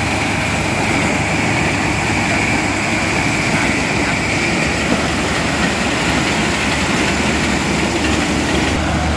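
Corn combine harvester running steadily under load, its engine and header machinery working as it cuts through standing dry corn stalks.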